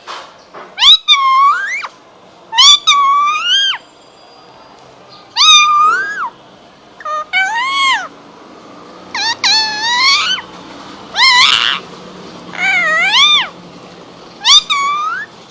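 Indian ringneck parrot calling: a string of loud, high, pitched calls that rise and fall in pitch, coming in about eight bursts a second or two apart.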